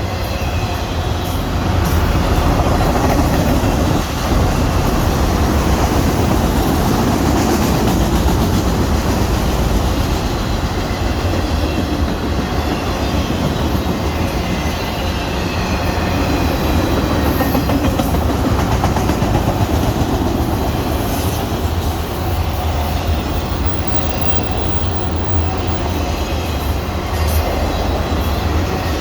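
Freight train of auto rack cars rolling past at speed: a steady, loud rumble of wheels on rail with clickety-clack over the rail joints.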